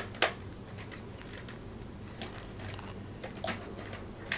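Small plastic doll toys, a toy spoon and a doll, being handled: a few scattered light clicks and taps over a faint steady low hum.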